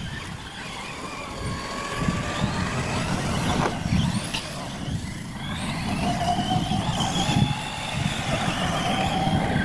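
Radio-controlled trophy trucks racing on a dirt track: a motor whine that changes pitch with the throttle and holds steadier through the second half, over a low rumble.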